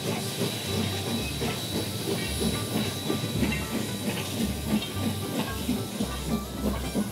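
Steam locomotive running, with a steady steam hiss and a quick regular beat of about three pulses a second.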